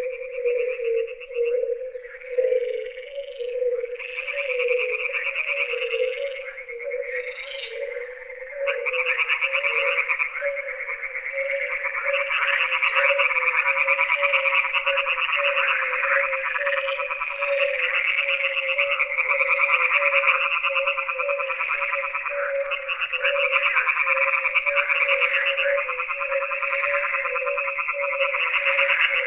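A frog chorus: many frogs croaking in a dense, fast-pulsing chatter over a steady, wavering lower drone. It swells louder and fuller about nine seconds in.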